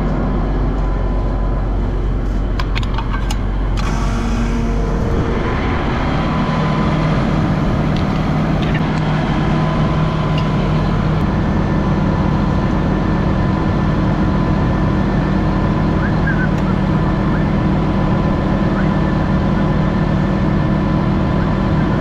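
Farm diesel refuelling: a few clinks as the fuel nozzle is handled, then, about five seconds in, a steady mechanical hum as the transfer pump runs and dyed diesel flows from the storage tank into a tractor's fuel tank.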